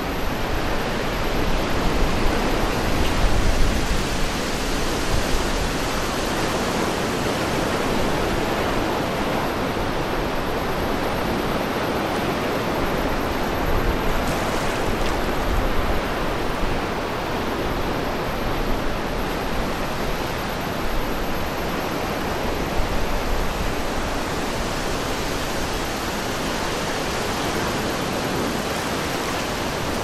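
Steady wind rushing over the microphone, with low buffeting gusts, strongest a few seconds in.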